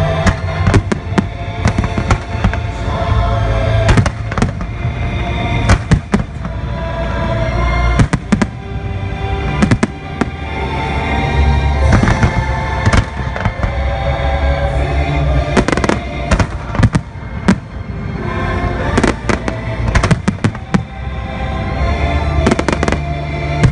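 Fireworks bursting: repeated sharp bangs, some in quick clusters, over loud show music.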